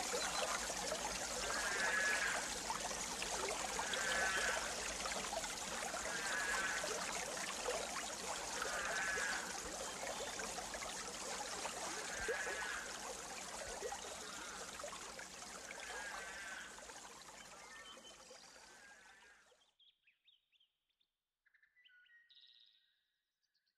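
Outdoor riverside ambience: a steady hiss like running water, with a short wavering call repeating every two to three seconds. It fades out gradually and is gone about twenty seconds in, leaving a few faint chirps.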